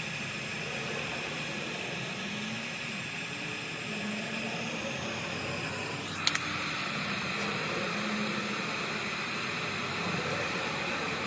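Steady, even hiss-like background noise, with a sharp double click about six seconds in.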